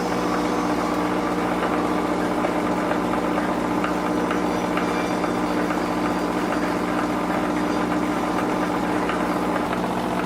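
An engine running steadily at a constant speed, its tone holding level throughout.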